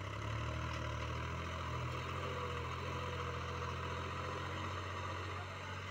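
Small farm tractor's diesel engine running steadily under heavy load as it pulls a loaded trolley up a sandy slope, hard enough to lift its front wheels.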